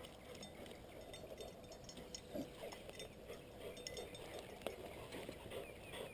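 Faint, scattered clicks and snaps of a bluetick coonhound pushing through dry brush and twigs, with one sharper snap about two-thirds of the way in.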